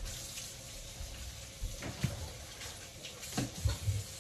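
Kitchen faucet running into the sink while a chunk of meat is rinsed under the stream, with a few soft knocks about halfway through and again near the end.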